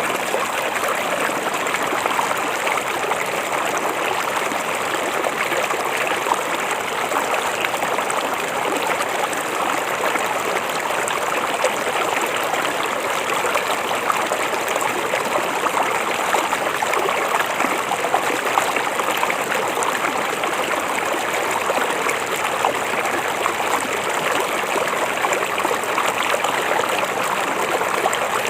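River water flowing steadily: an even, unbroken rush of running water with fine splashing and trickling through it.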